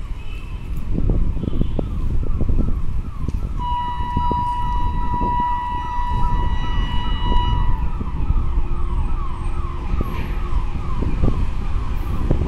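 Electric locomotive's horn sounding a steady high note from about three and a half seconds in, over a low rumble and a quick, repeating falling warble.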